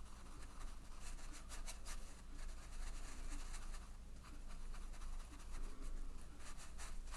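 Faint scratching and rubbing of a wet round watercolour brush working paint on cold-pressed cotton watercolour paper, in a series of short, irregular strokes.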